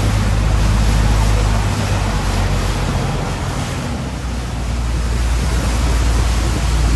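A Thai longtail boat's engine running steadily underway, with water rushing along the hull and wind on the microphone. The sound eases briefly about four seconds in, then returns to full strength.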